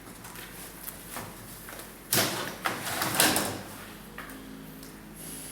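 Knocks and scrapes from handling during an unboxing, with two loud clattering knocks about two and three seconds in and a few smaller clicks around them.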